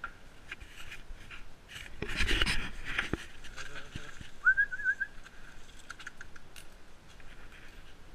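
Footsteps and rustling from a person walking through a yard past shrubs, loudest about two to three seconds in, with a short high warbling whistle a little past halfway.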